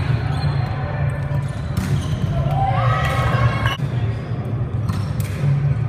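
Indoor volleyball rally: several sharp slaps of the ball being hit, heard about two seconds in, near four seconds and again near the end, over a steady low hum, with a few short calls or squeaks in between.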